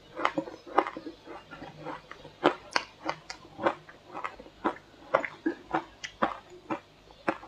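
Shaved ice dusted with matcha powder being crunched between the teeth, a steady run of sharp crunches at about two a second.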